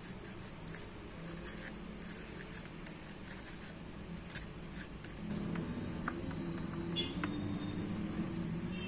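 Faint handling clicks and light taps of metal tweezers and gloved fingers on a small plastic petri dish as tissue is pushed inside, ending in a sharper click. A low hum comes in about five seconds in.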